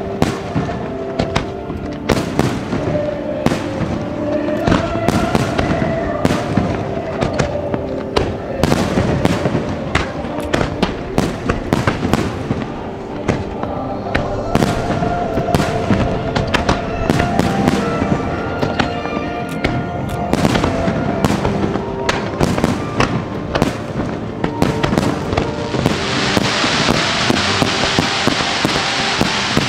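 Fireworks display: a rapid, dense run of aerial-shell bangs and crackles, with music playing underneath. Near the end a steady hissing crackle builds over them.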